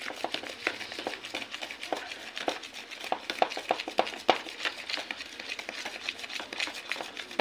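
Spoon scraping and clicking against an orange plastic bowl as a damp, gritty mixture of baking soda and citric acid is stirred, in quick irregular strokes several times a second.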